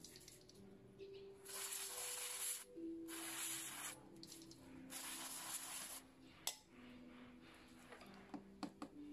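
Aerosol carb cleaner sprayed from a can through its straw in three bursts of hiss, each about a second long, onto a small throttle-body part to dissolve the dirt. A sharp click comes after the bursts, then a few light knocks near the end as the can is set down.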